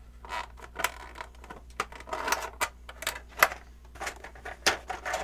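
Stiff plastic packaging being pulled off and handled: irregular crackles, rustles and sharp clicks, the sharpest a little past the middle.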